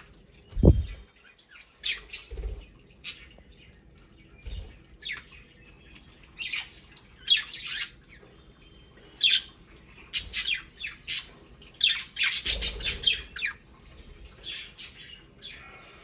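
Budgerigars chirping in many short, high calls, busiest about ten to thirteen seconds in. A loud low thump comes just under a second in.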